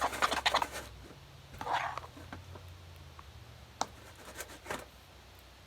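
Homemade glue slime being worked and mixed: a quick run of wet, sticky clicks in the first second, a short squelch about two seconds in, then a few separate clicks near the end.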